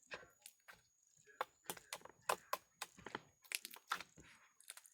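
Glossy slime being squeezed and stretched by hand, giving an irregular run of sharp clicks and wet pops, several a second.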